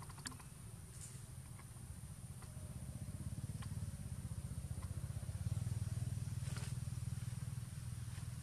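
Low engine rumble, growing louder about three seconds in and loudest a little past the middle, with a few faint clicks.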